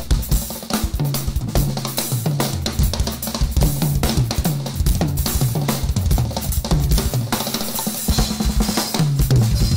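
Drum kit played live: rapid snare and bass drum strokes with ringing cymbals, over a repeating run of low pitched notes.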